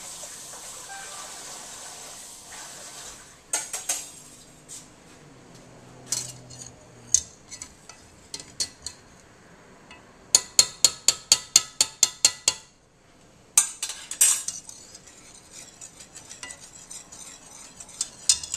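Wire whisk beating sauce in a stainless steel saucepan, its wires clinking against the metal sides: scattered clinks, then a fast run of about five strikes a second for two seconds past the middle, then looser clinking. A steady hiss fills the first few seconds.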